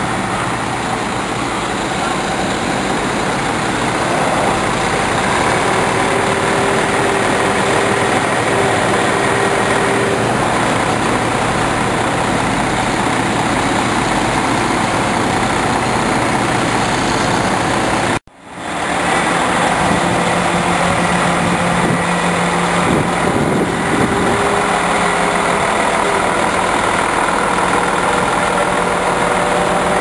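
Heavy truck diesel engine running steadily at a constant speed, with faint steady whining tones over it. The sound cuts out for a split second about two-thirds of the way through, then carries on the same.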